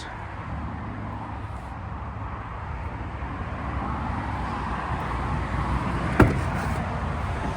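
Steady low rumble of a vehicle with a single sharp click about six seconds in.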